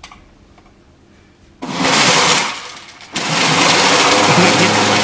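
Countertop blender blending tomatoes into juice: a short burst of about a second and a half, a brief dip, then running steadily from about three seconds in.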